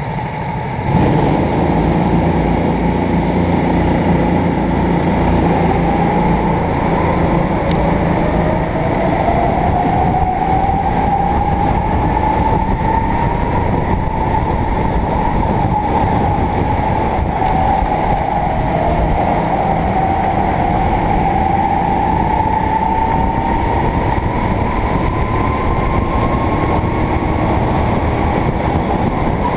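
Sodi rental kart engine running hard, heard close from a camera mounted on the kart, with the other karts' engines around it. About a second in it gets louder; its pitch climbs slowly over several seconds, dips as the kart slows for a bend, then climbs again.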